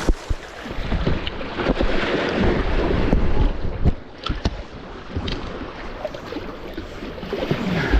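Sea surf washing around, with wind rumbling on the microphone and a few sharp knocks about four seconds in.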